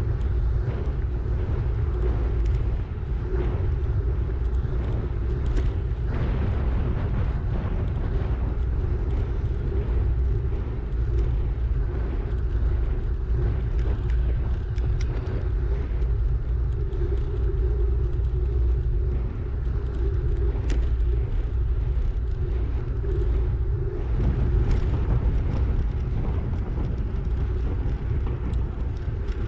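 Steady wind noise buffeting the microphone of a camera on a moving bicycle: a low rumble with a faint hiss above it.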